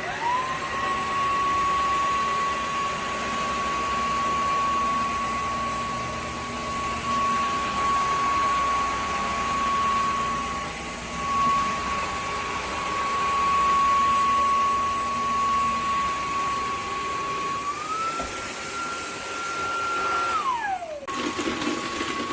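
Dreame G10 Combo cordless wet-dry vacuum running. Its motor whine rises as it starts and holds steady, steps up to a higher pitch near the end, then winds down and comes straight back at the lower pitch.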